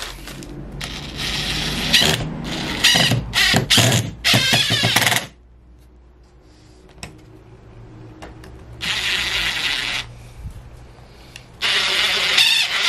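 Cordless DeWalt driver spinning a long screw into a wooden table leg. It runs in three spells: a long one with several short stops and restarts, then two shorter runs after pauses.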